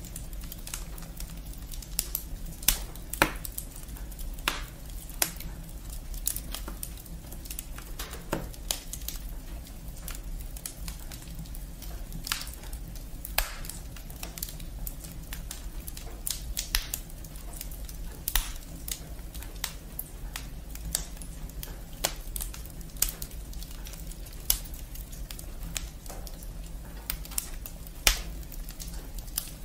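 Firewood burning in an open fireplace, crackling with irregular sharp pops and a few louder snaps, over a low steady rumble.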